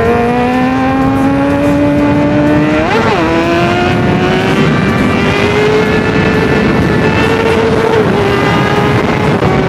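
Kawasaki ZX-10R's inline-four engine running under way, its pitch climbing slowly and steadily. There is a brief jump in pitch about three seconds in and a small dip near eight seconds.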